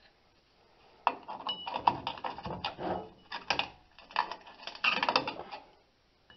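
Metal clicking and scraping from a brake hold-down spring tool gripping and turning a shoe hold-down cup and spring on a rear drum brake, starting about a second in.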